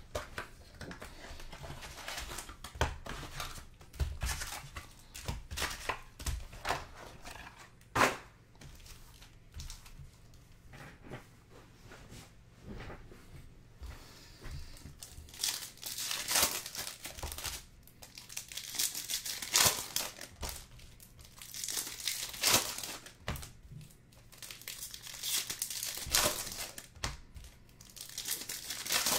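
Trading-card hobby box being opened and its foil card packs handled, with scattered knocks and cardboard rustling, then repeated crinkling of the pack wrappers from about halfway through. A pack wrapper is torn open near the end.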